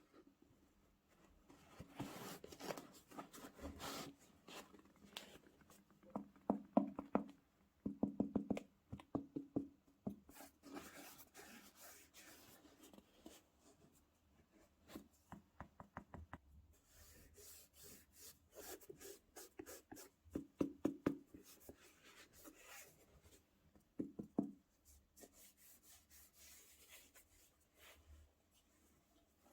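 Hands handling a pair of sneakers and their packaging: irregular rustling, rubbing and clicking with scattered light knocks, in a small room.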